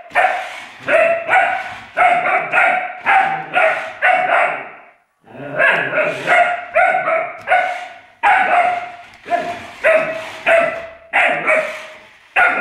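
Alaskan Malamute puppy barking in a rapid string of short, high yaps, about two to three a second, at a small toy electric car, with a brief pause about five seconds in.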